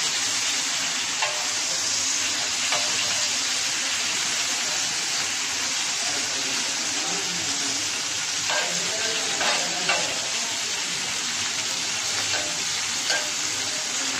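Chopped onions sizzling in hot oil on a tawa griddle, with a spatula scraping and stirring them a few times, most busily about two thirds of the way in.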